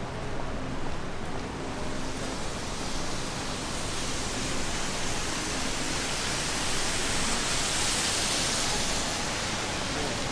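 Steady hiss of rain on a wet city street. The hiss grows brighter and louder for several seconds past the middle, then eases back near the end.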